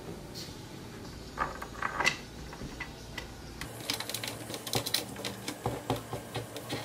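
Small clicks and light knocks of wooden crib parts being handled and fitted, as a changer side panel is pressed onto its dowels and bolt fittings. A few scattered clicks come first, then a busier run of quick clicks and taps in the second half.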